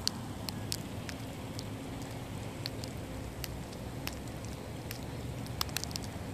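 Light rain outdoors: scattered drops ticking sharply, a few at a time, over a steady low rumble.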